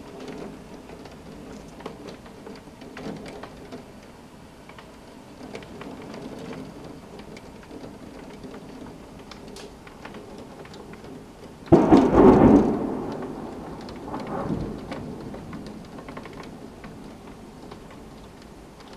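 Steady rain with low rumbles of thunder. About twelve seconds in, a sudden loud thunderclap breaks out and rolls away over a few seconds, with a last swell of rumble shortly after.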